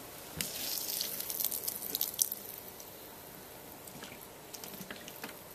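Old compressor oil, frothy with dissolved refrigerant, being poured in a thin stream into the funnel of a plastic oil-disposal container: a trickling, crackling pour with scattered small ticks, louder in the first two seconds or so and then softer.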